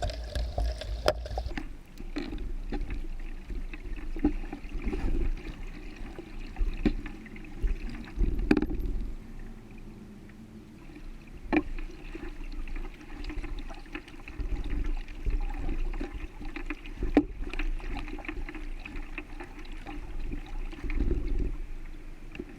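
Kayak paddling: paddle blades splashing and dripping in the water, with a few sharp knocks scattered through.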